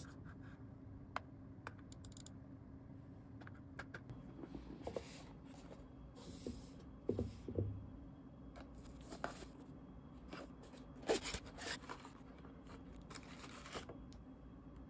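Faint handling of packaging material: scattered short rustles, scrapes and tearing sounds with a few light taps, over a low steady hum.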